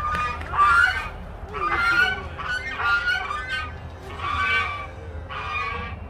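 White domestic geese honking in several bouts of loud, repeated calls, about one bout a second.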